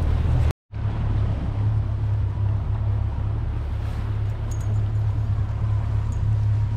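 Motorboat engine running with a steady low hum, broken by a sudden cut about half a second in.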